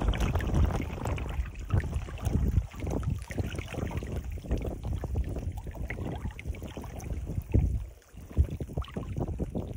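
Seawater lapping and sloshing against a rocky shore, with gusty wind rumbling on the microphone.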